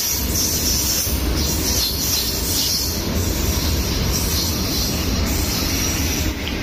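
Freight train's tarpaulin-covered open wagons rolling past close by: a steady rumble of steel wheels on the rails with a hissing high edge.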